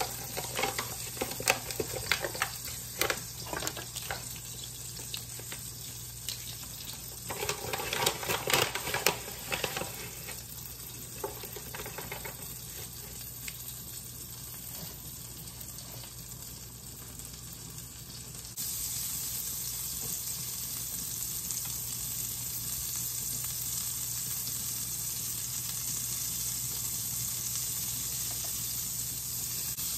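Butter melting and sizzling in a nonstick frying pan, with scattered crackles and a burst of spattering early on. About two-thirds of the way through it turns into a steady, even sizzling hiss, and near the end a silicone spatula stirs the melting butter in the pan.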